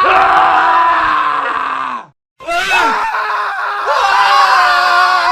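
Men screaming: one long scream that slides down in pitch and cuts off about two seconds in, then after a brief gap several male screams overlapping at once.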